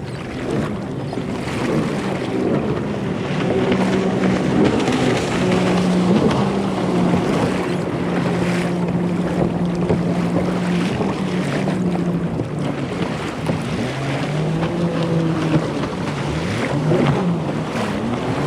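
Motorized watercraft engine droning, its pitch stepping and gliding up and down as the throttle changes, over wind and water noise.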